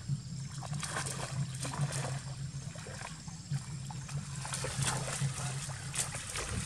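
Monkeys splashing and scrambling through a shallow muddy puddle: irregular splashes and sloshes, over a low steady hum.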